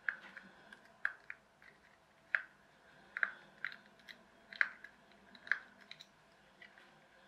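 Precision screwdriver turning small screws out of a plastic toy car: about eight short, sharp clicks and creaks at uneven intervals as the screws turn in the plastic.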